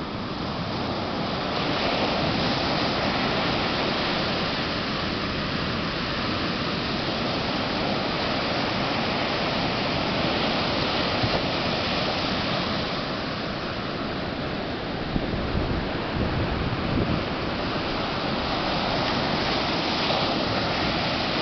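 Ocean surf breaking on a sandy beach: a steady rush of waves that slowly swells and eases.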